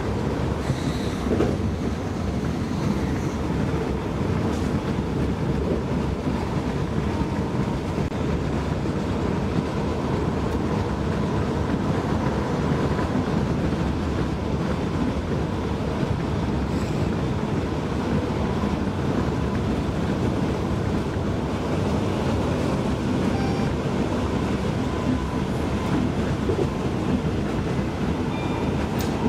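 Class 323 electric multiple unit running at speed, heard from inside the passenger carriage: a steady rumble of wheels on rail with a faint steady whine.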